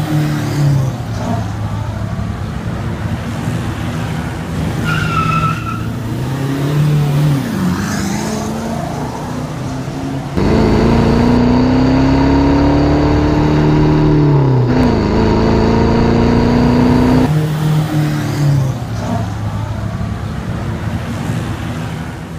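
Toyota Innova's aftermarket exhaust under way: the engine note climbs steadily as the car accelerates, drops at a gear change, then holds, heard over a few cut-together drive clips.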